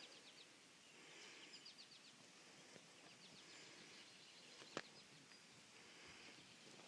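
Faint outdoor birdsong: short trills of quick chirps recurring every second or two, with one sharp click a little under five seconds in.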